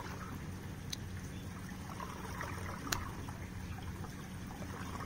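Steady trickling, running water with a low steady hum, the pond's water flow in the background. Two small sharp clicks, about one and three seconds in, as the capped glass test tube is handled.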